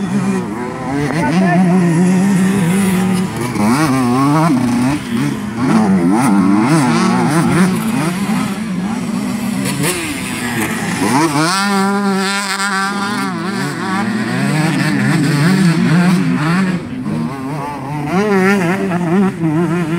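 Several two-stroke MX2 motocross bikes revving around the track, their engine pitch rising and falling as the throttle goes on and off. About eleven seconds in, one bike accelerates hard, its pitch climbing steeply, then holds a high steady note for a couple of seconds.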